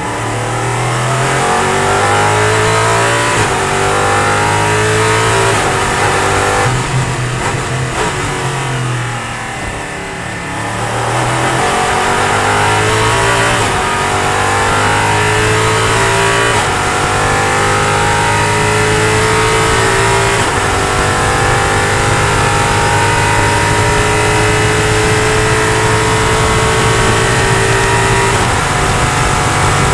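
Ligier LMP3 race car's Nissan V8, heard from inside the cockpit, pulling up through the gears with the pitch rising and dropping at each upshift. About a third of the way in it eases off while the car slows, then it accelerates hard again and holds a loud, slowly climbing note at high speed.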